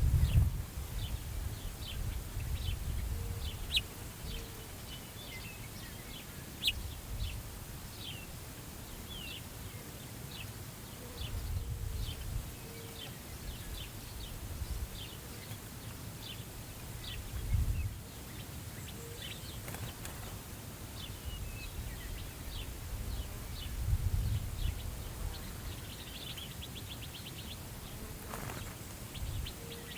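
Small birds chirping in quick, short repeated notes throughout, over steady prairie wind, with several low gusts buffeting the microphone: one at the start, more around a third of the way in, past halfway and about four-fifths through.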